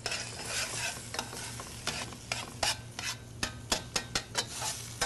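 Ground beef, pork, veal and Italian sausage browning with diced carrot and celery in a stainless steel sauté pan, sizzling steadily while metal tongs stir it, clicking and scraping repeatedly against the pan.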